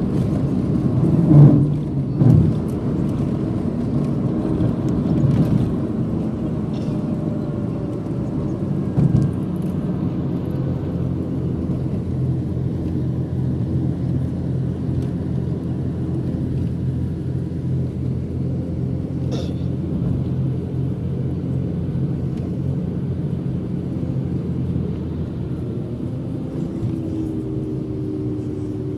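Steady rumble of a moving car heard from inside the cabin: engine hum and road noise, with a few brief knocks in the first ten seconds.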